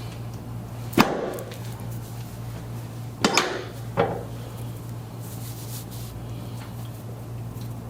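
Three sharp cracks during a chiropractic spinal adjustment: one about a second in, then two close together a couple of seconds later, over a steady low hum.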